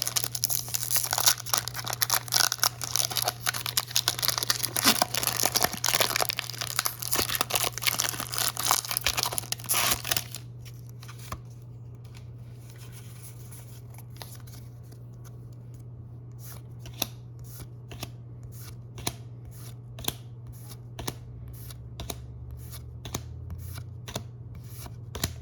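Foil booster-pack wrapper of Pokémon trading cards being torn open and crinkled for about ten seconds, then the cards being flicked through one by one with soft clicks about two a second. A steady low hum runs underneath.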